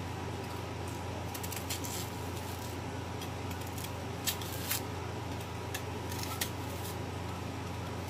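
Kitchen knife scraping and cutting under the thick bark of a cassava root as it is peeled away, a scattering of short sharp scrapes and clicks over a steady low hum.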